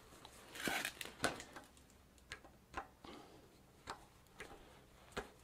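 Irregular metallic clicks and short scrapes of needle-nose pliers working a threaded headset ball race onto a bicycle fork's steerer tube, which is threading on with difficulty.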